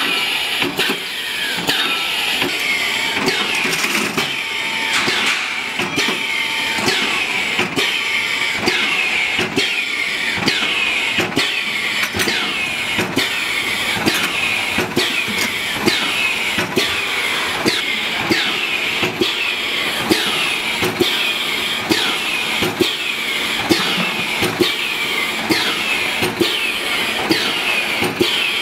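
Carrot peeling machine running, with a steady churning rhythm that repeats about twice a second.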